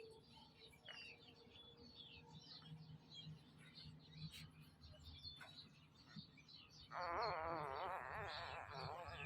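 Puppies' faint high squeaks and chirps, then a louder quavering whine starting about seven seconds in.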